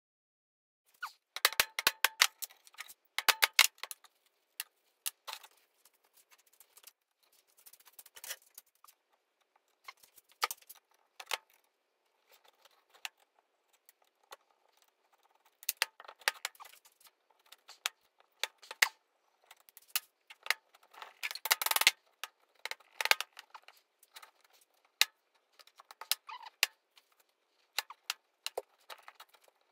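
Hand tools scraping and clinking against the lathe's metal parts while paint is stripped, played back sped up. The sound is a rapid, irregular run of sharp clicks and short scrapes, with a few quieter pauses.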